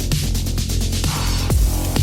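Electronic dance music with a heavy kick drum, the beat giving way to a hissing noise sweep in the middle.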